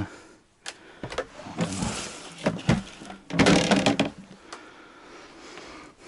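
Irregular knocks, clicks and scraping rustles of someone moving about and handling things among debris in a derelict wooden house. The loudest, longest scrape comes about three and a half seconds in.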